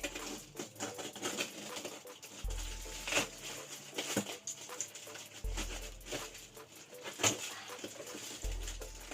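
A parcel being opened by hand: packaging scratching, crinkling and tearing, with several sharp clicks and knocks, the loudest about three, four and seven seconds in.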